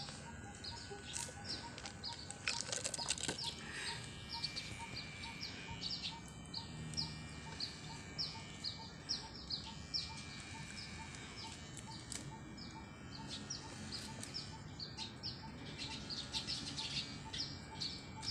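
A small bird chirping over and over, short high falling chirps about two or three times a second, with a brief lull partway through.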